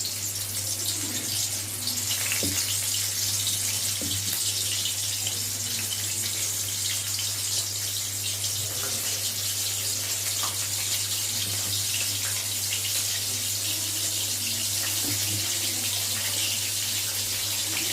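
Battered chicken leg pieces deep-frying in hot oil: a steady sizzling hiss, with a few faint knocks in the first few seconds.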